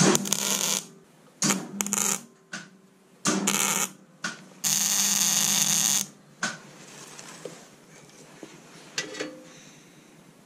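Wire-feed (MIG-type) welder arc crackling and sizzling in a series of short tack-weld bursts, the last held for about a second and a half, as a joint on a steel exhaust pipe is welded. After about six seconds the arc stops and only a few small clicks follow.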